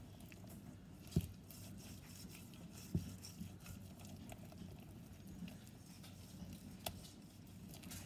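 A whisk stirring thick, wet batter in a stainless steel bowl: a soft, steady slop and patter, with a few dull knocks, the loudest a little over a second in and about three seconds in.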